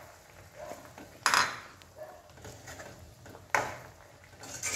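A metal spoon stirring taro pieces through thick curry in a metal pan, scraping and knocking against the pan's sides. There are two louder strokes, about a second in and about three and a half seconds in.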